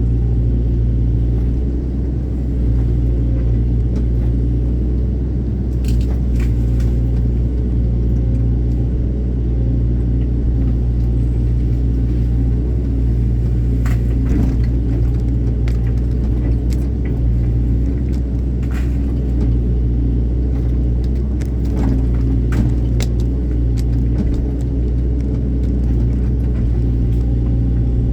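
Excavator's diesel engine running steadily, a loud low hum, with a few short sharp clicks now and then.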